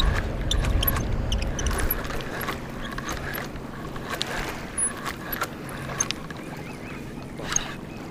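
Wind buffeting the microphone, heaviest in the first two seconds, then a steadier wind hiss. Scattered small clicks and taps come from a spinning rod and reel being worked close by.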